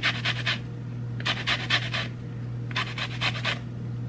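Sweet orange peel rasped against a flat stainless-steel hand grater, zesting the orange. The quick scraping strokes come in short runs, about three runs with brief pauses between.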